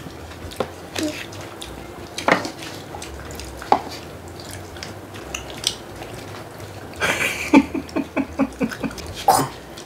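Tableware sounds of a meal: light clinks of chopsticks and spoons against bowls and cups, a few scattered ones and then a quicker run of short sounds near the end.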